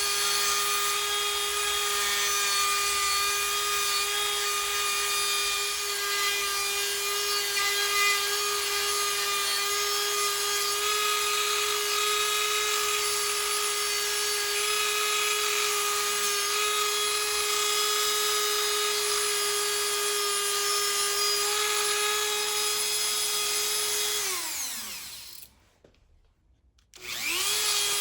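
Dremel 4000 rotary tool running at a steady high-pitched whine while grinding. About 24 s in it is switched off and spins down with falling pitch into near silence. Near the end it is switched back on and spins up quickly to the same whine.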